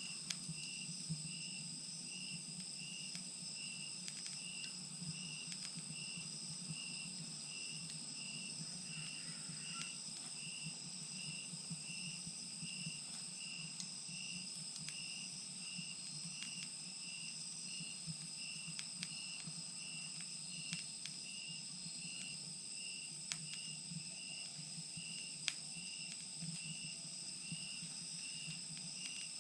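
Insects singing: a steady high trill with a chirp repeating about once a second. A wood fire in a chimenea crackles underneath with a few sharp pops.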